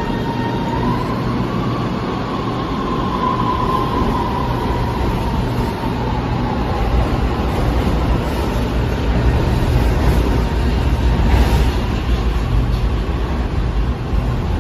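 Shanghai Metro Line 11 type 11A02 train's Times Electric VVVF traction inverter whining as the train pulls out of the station: a single tone that rises a little over the first few seconds, then fades, under the low rumble of the cars rolling past, which grows toward the end.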